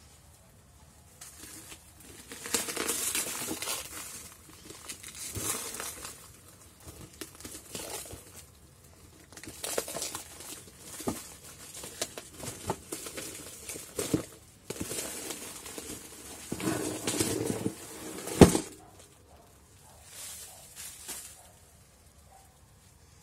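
Clear plastic shrink wrap being peeled and pulled off a cardboard box, crinkling in irregular bursts with small crackles. One sharp crack comes about three quarters of the way in.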